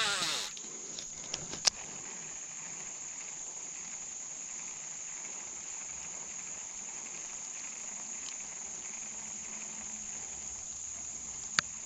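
Steady, high-pitched chorus of insects, such as crickets, trilling without a break, with a couple of sharp clicks near the start and the end.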